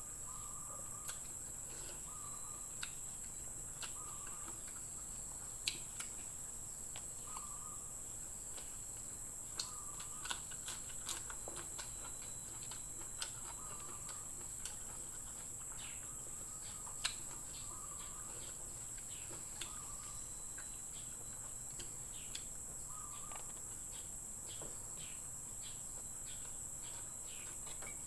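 A steady, high insect chorus runs throughout, with scattered soft clicks and mouth sounds from someone eating.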